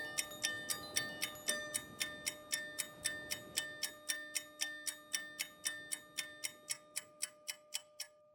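Samsung Tizen OS ringtone: an even clock-like ticking, about four ticks a second, over held chime tones, fading away near the end and stopping.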